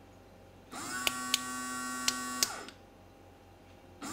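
Small electric pump motor of a battery-powered portable shower switched on with the controller's on-off button: it hums steadily at one pitch for about two seconds with a few sharp clicks, then winds down in a falling whine when switched off.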